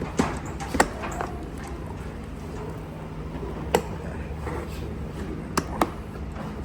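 Sharp plastic clicks and taps, about six at uneven spacing with two close together near the end, as a carbon fibre mirror cap is handled and pressed onto the mirror housing, over a steady low hum.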